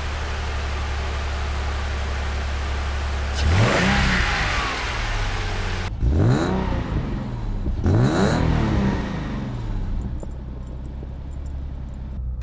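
Nissan 300ZX Z32's 3.0-litre V6 idling steadily, then revved three times, each rev rising and dropping back, before settling into a steady idle. It runs smoothly, the misfire cured by cleaning out the fuel injector connectors.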